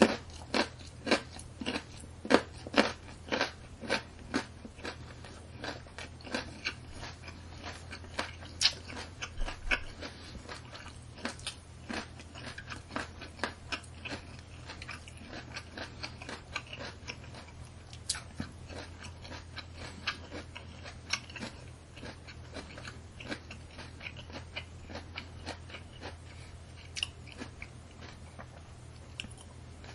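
Raw carrot being chewed: crisp crunches about two a second, loudest in the first few seconds, then softer chewing with a few louder crunches in between. A steady low hum runs underneath.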